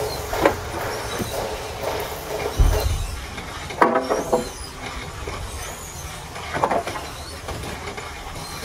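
Acacia log debarking machine running with a steady mechanical rumble and rattle, with sharp knocks and clatters every few seconds as logs are fed through and handled.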